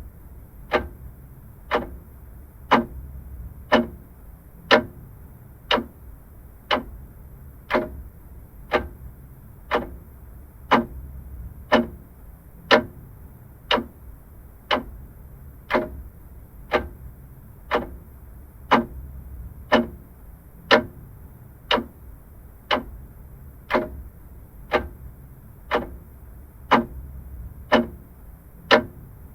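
Vintage clock ticking steadily, about one tick a second.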